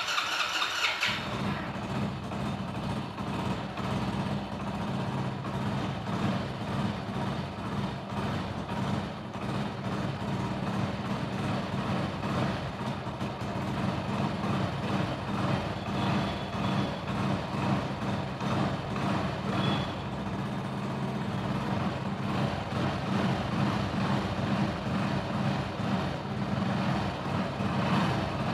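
Hero Splendor motorcycle's single-cylinder four-stroke engine running at a steady idle after its rebuild, its low engine note settling in about a second in.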